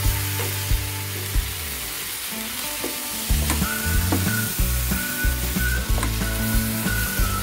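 Tomato and onion masala sizzling in a frying pan as it is stirred with a spatula. The spatula gives short taps and scrapes against the pan every second or so.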